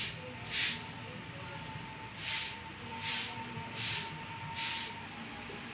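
Fine handloom cotton saree cloth swishing as it is shaken out and spread open by hand: about six short, sharp swishes, two close together at the start, then four evenly spaced after a pause.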